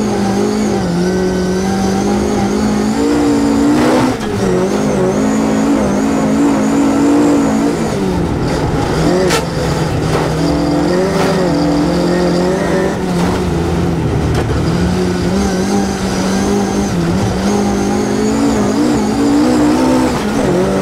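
Toyota Starlet rally car's engine running hard at high revs, heard from inside the car, with the revs dropping and rising again a few times. A few short knocks sound over it.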